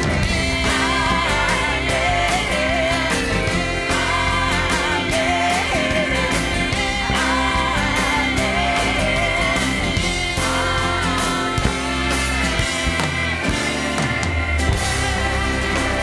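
Background music: a pop-rock song with a steady beat, guitar and a singing voice.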